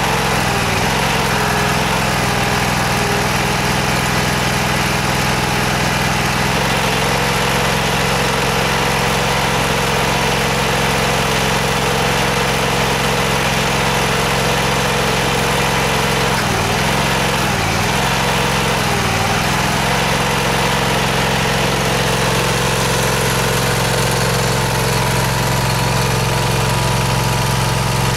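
Small air-cooled engine powering a hydraulic stone splitter, running steadily at constant speed. Its pitch dips briefly three times a little past halfway.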